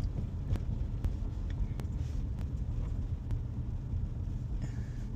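Steady low road and engine rumble inside a moving car, with a few sharp clicks at uneven intervals in the first few seconds.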